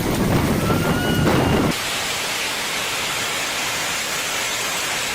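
Hailstorm: strong wind buffeting the microphone with a faint brief whistle, then an abrupt cut about two seconds in to a steady hiss of heavy hail and rain falling.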